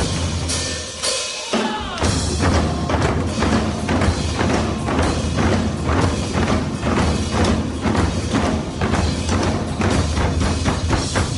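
Live percussion playing rapid, dense drum strikes over backing music with a steady bass line. The bass drops out briefly about a second in, then the full groove comes back.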